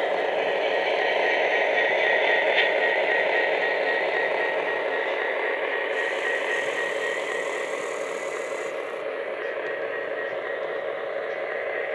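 Model train running past on its track: a steady rolling rumble of wheels and motors, loudest as the model SD70 diesels go by and easing slightly as the passenger cars follow.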